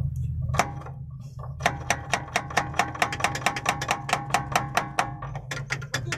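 Rapid, even metallic tapping, about six strikes a second, at the starter motor of a diesel truck that will not crank, over a steady low hum. The starter is faulty and is being tapped to free it.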